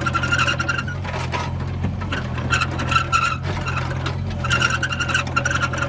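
Hitachi EX35U rubber-track mini excavator running, its diesel engine giving a steady low hum, with a high squeal that comes and goes several times.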